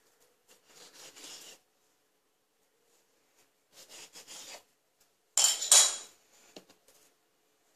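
A kitchen knife cuts down through soft dough onto a wooden board twice, each cut a short scrape. About five and a half seconds in comes a louder, sharp clatter with a metallic ring.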